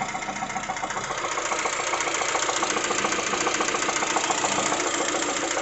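Lada Vesta 1.6 four-cylinder petrol engine idling with a fast, even knocking from inside the engine, the fault being traced by disabling cylinders one at a time.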